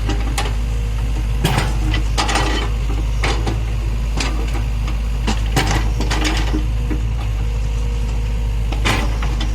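Excavator loading a dump truck: a heavy diesel engine runs steadily under irregular clanks and knocks of the bucket and dropped earth and stone.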